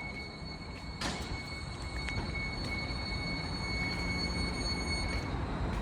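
Caltrain Stadler electric trainset pulling into the station: a low rumble that grows steadily louder, with a steady high-pitched whine that stops near the end and a sharp clank about a second in.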